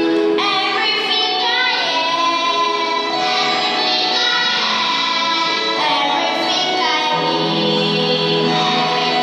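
A group of young children singing a song together over backing music.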